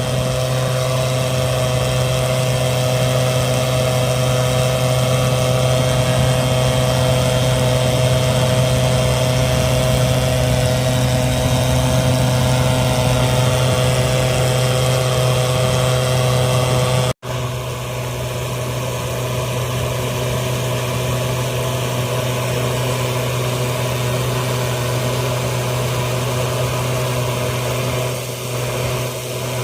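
An engine idling steadily with a constant hum. It cuts out abruptly about 17 seconds in, then the same steady idling picks up again slightly quieter.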